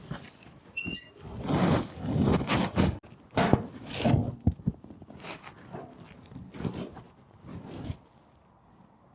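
Irregular knocks, clicks and rustling from objects being handled and moved, dying down to a quiet stretch about eight seconds in.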